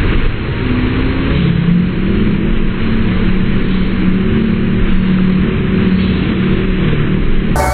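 Steady roar of churning water from an artificial standing surf wave, with a low steady hum underneath.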